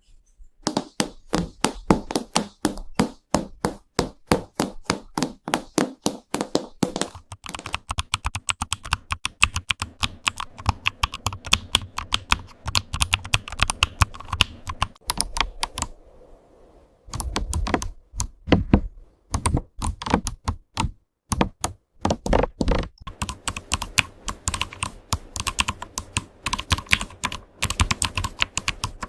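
Creamy keyboard clicks and taps: keys struck in quick, dense runs, with a brief pause a little past halfway, after which some heavier, deeper key thuds come in.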